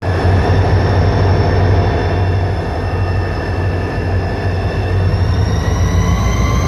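Turbocharged EMD two-stroke diesel locomotives under power: a loud, steady turbocharger whine with several high tones over a deep engine rumble. The whine starts to rise in pitch about five seconds in as the turbos spool up.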